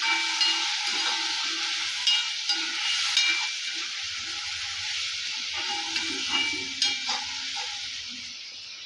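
Sliced potatoes frying in oil in a metal kadai, sizzling steadily while being stirred with a metal ladle that scrapes and clicks against the pan now and then. The sizzle slowly fades near the end.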